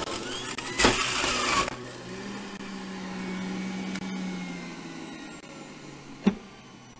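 Breville Bluicer's juicer motor running, with a loud burst of grinding about a second in as fruit is pushed through the spinning cutter, then running on with a steady hum that slowly drops in pitch. A sharp click about six seconds in.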